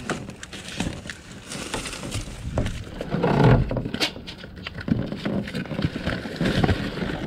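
Rummaging through trash bags and packaged snack foods in a dumpster: irregular rustling and handling noise, with scattered knocks and clicks. It gets louder about three and a half seconds in, and a sharp click comes about four seconds in.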